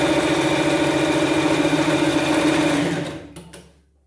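Household sewing machine running steadily as it stitches a seam, then slowing and stopping near the end.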